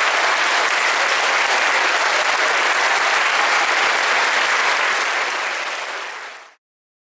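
Audience applauding steadily, then fading out and stopping about six and a half seconds in.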